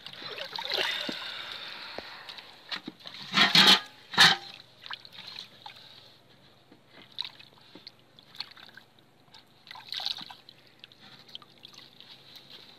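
Hands working through wet mud and water in a fine mesh fishing net: wet sloshing and small splashes, with two loud splashes about three and a half and four seconds in.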